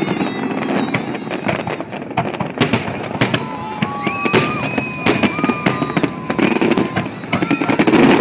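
Fireworks display going off: many sharp bangs and crackling pops in quick succession over a steady rumble of crowd noise. In the middle a high whistle-like tone is held for a few seconds.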